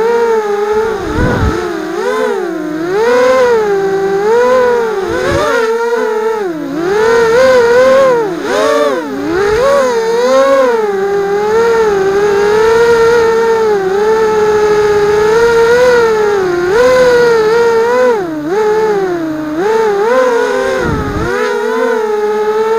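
A racing quadcopter's brushless motors and propellers, heard from a camera mounted on the drone itself, whining loudly. The pitch rises and falls constantly as the throttle changes through turns. There are sudden deep drops where the throttle is chopped, about a second in and near the end.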